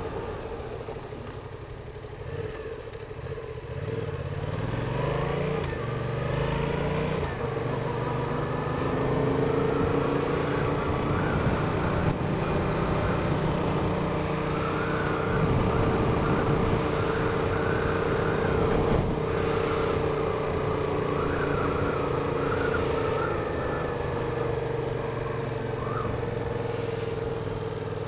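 Yamaha XSR700's 689 cc parallel-twin engine accelerating up through the gears in the first several seconds, its pitch rising in steps, then running steadily at cruising speed, with wind rushing over the microphone.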